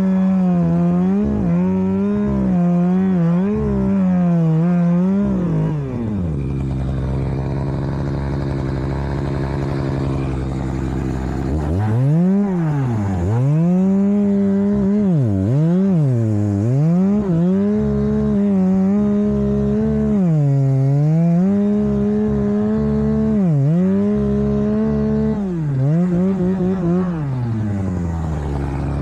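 Two-stroke chainsaw running near full throttle, its pitch dipping sharply and recovering again and again as it bogs under load in the cut. In the middle it runs steadily at a lower pitch for several seconds.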